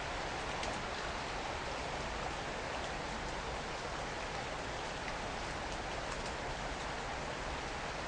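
Steady hiss of light rain falling through the woods, with a few faint scattered drop ticks.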